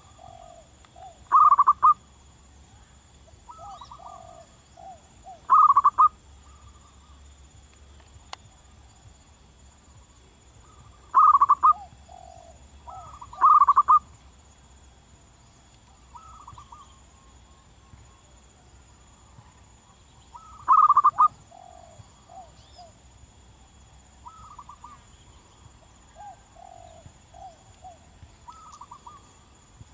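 Zebra dove cooing: five loud, short bursts of rapid staccato coos, with fainter, lower coo phrases in between.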